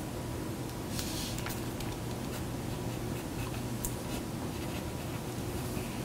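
Pen scratching on paper as notes are written: soft, irregular strokes over a steady low room hum.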